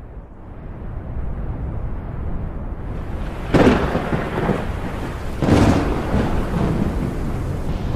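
Thunder: a deep rumble swelling in from silence, broken by two sharp cracks about three and a half and five and a half seconds in.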